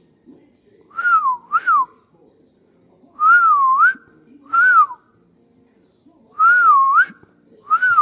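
Clear whistling in short phrases: notes that swoop up and down in pitch, in five brief groups about a second apart.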